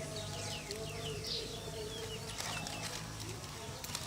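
Small birds chirping: a quick series of short, high, falling chirps, over a low steady hum.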